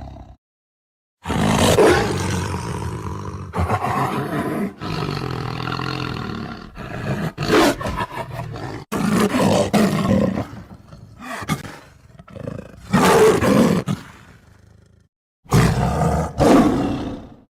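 Lion roaring: a run of loud roars and shorter grunting calls, each starting and stopping abruptly. The sound drops to dead silence for about a second near the start and briefly again near the end, where the sound-effect track restarts.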